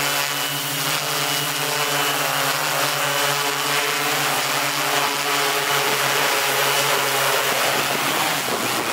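M690L multirotor drone's electric motors and propellers humming steadily in flight, heard up close; in the last second the steady pitch breaks up and the hum grows rougher.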